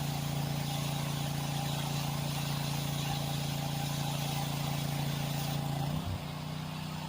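Small gasoline engine running steadily at constant speed. About six seconds in, its note drops and it gets a little quieter.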